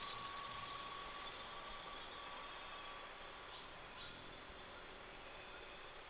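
Faint night forest ambience: an even hiss of insects, with a thin steady tone that dies away about halfway through and two short, faint chirps soon after.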